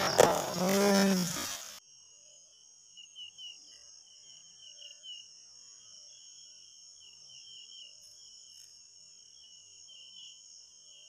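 Insects chirring steadily at dusk: a fast pulsing chirr with a thin, steady higher whine above it. In the first two seconds a loud splash of water and a short grunt come as the bamboo pole rod is cast, then cut off abruptly.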